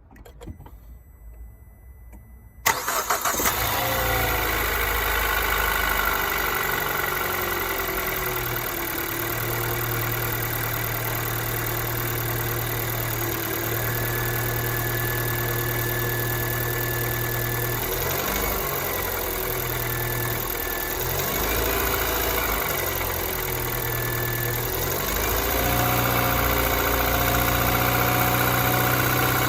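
Kia Ceed second-generation 1.6-litre engine cold-started about three seconds in, catching at once and then running at a steady fast idle, with slight changes in its note later on. This is the knock at cold start that the owner reports.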